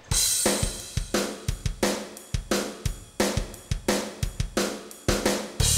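Background music with a steady drum-kit beat of kick, snare and cymbals, about three hits a second; a low bass tone comes in near the end.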